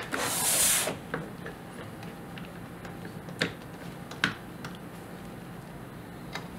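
A brief scrape of steel parts sliding against each other, then a few scattered light metallic clicks and taps as a stainless-steel hexagon base and mini adapter are seated on a ball vise and its bolt is handled.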